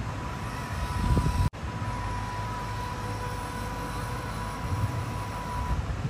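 Electric motor and gearbox of an RC Toyota Land Cruiser pickup whining steadily over a low rumble as the truck drives. The sound cuts out for an instant about a second and a half in.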